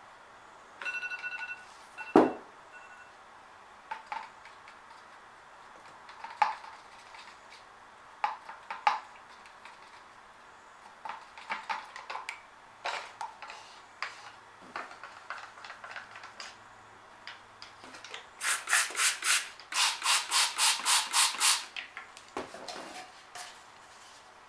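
Acrylic pour paint being stirred by hand in a cup, the stirrer scraping and tapping against the cup's sides, with a sharp knock about two seconds in. Near the end comes a fast run of even scraping strokes, about three to four a second, for about three seconds.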